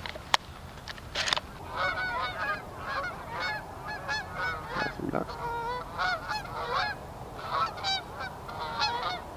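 A flock of geese honking: many short, overlapping calls begin about two seconds in and keep on steadily. There is a single sharp click just before the honking starts.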